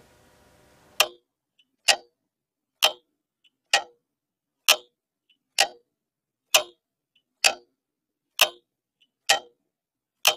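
A clock ticking: sharp ticks about once a second, starting about a second in, with a fainter click in between every other beat.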